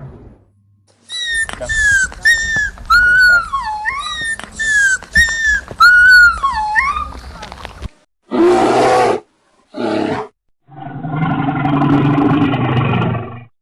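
A run of animal calls from different animals: about eight short, high calls that dip and rise in pitch, then two brief lower calls and one long, lower call of about three seconds near the end.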